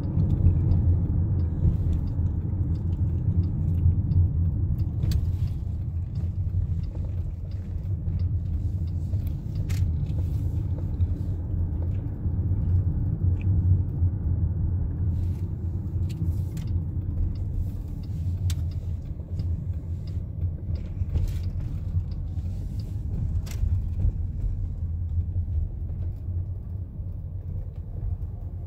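Steady low rumble of a car driving, heard inside the cabin: engine and road noise, with a few faint ticks. It eases off slightly near the end as the car slows.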